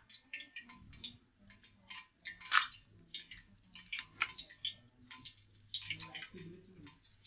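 Crackling and clicking as a raw blue crab is handled and pulled apart by hands in plastic disposable gloves: the gloves crinkle and the shell cracks, with two sharper snaps about two and a half and four seconds in.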